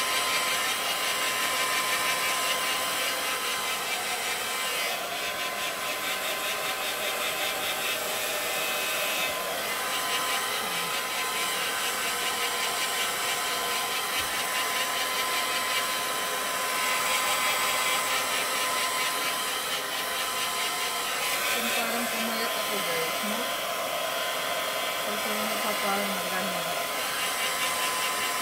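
Handheld hair dryer running steadily on wet hair, a constant rush of air with a thin steady whine.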